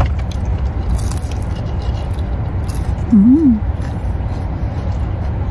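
Steady low rumble inside a parked car's cabin, the car idling, with a few crisp crunches from biting a fried cheese spring-roll stick. A short hummed 'mm' with a rise and fall in pitch comes a little past three seconds in.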